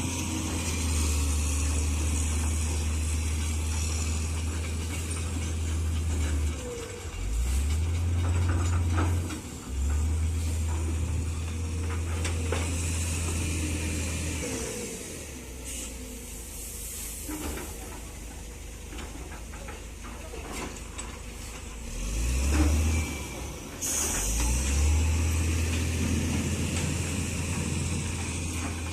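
Hitachi hydraulic excavator's diesel engine running under working load, its steady low hum dipping and recovering several times as the hydraulics are worked, quieter for several seconds in the middle. Bursts of hiss and scattered clatter accompany it.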